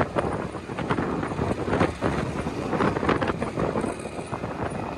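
Motorbike ride heard from the pillion seat: the motorbike's engine and road noise under wind buffeting the microphone in uneven gusts.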